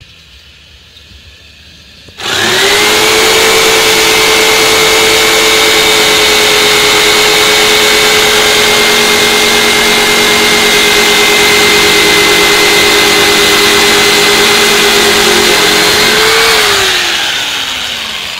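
Krisbow electric jigsaw switching on about two seconds in and running at a steady high whine while sawing through a wooden plank, then switched off near the end, its pitch falling as the motor winds down.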